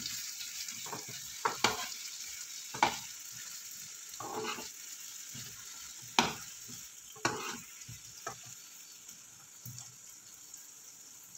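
Sliced onions sizzling in melted butter in a frying pan while a slotted metal spoon stirs them, knocking and scraping against the pan several times. The sizzle is steady and grows a little fainter near the end.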